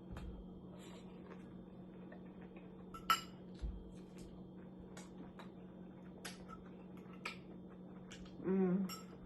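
Cutlery clinking and tapping against a dish in scattered small clicks, the sharpest about three seconds in, over a steady low hum, with a brief vocal sound near the end.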